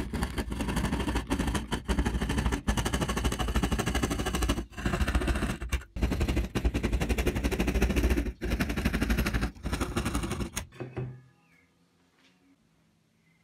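Hand saw cutting through a wooden strip held in a small clamp: rapid rasping strokes of the teeth through the wood, broken by short pauses every second or two, stopping about 11 seconds in.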